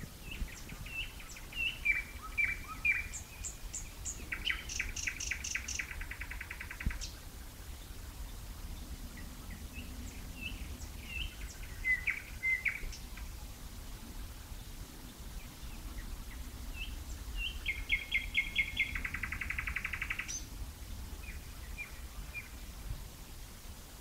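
Nightingale singing in three phrases with pauses between. Each phrase opens with short whistled notes and breaks into a rapid trill of repeated notes. A faint low rumble lies underneath.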